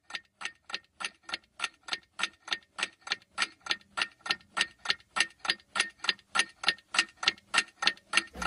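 Clock-ticking countdown sound effect: steady sharp ticks about four a second, growing louder over the first few seconds, marking the time left to guess.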